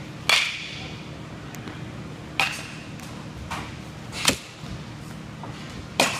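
Baseball bat striking pitched balls in a batting cage: four sharp cracks with a short ring, about two seconds apart, the first the loudest. A steady low hum runs underneath.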